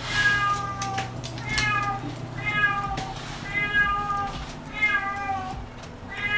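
A cat meowing over and over, about six short calls roughly a second apart, each dropping a little in pitch.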